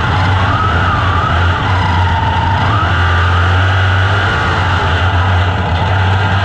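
Onboard sound of an open-wheel dirt-track racing car's engine running hard at high revs with wind and track noise. Its high note sags about a second and a half in, then climbs back near the three-second mark as the throttle eases and comes back on.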